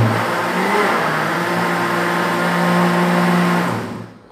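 Philips Walita countertop blender motor running for about four seconds, blending a thick batter of eggs, oil, milk, cheese and sour tapioca starch. It rises in pitch as it spins up, runs steadily, then winds down near the end as it is switched off.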